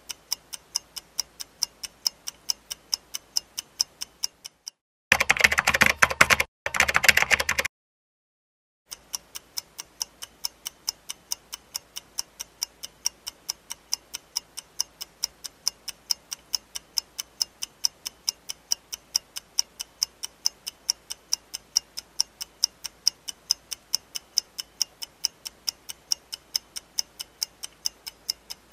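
Ticking clock sound effect counting down, about three sharp ticks a second. About five seconds in, the ticking gives way to a louder two-part burst of noise lasting under three seconds, then a second of silence, and the ticking starts again.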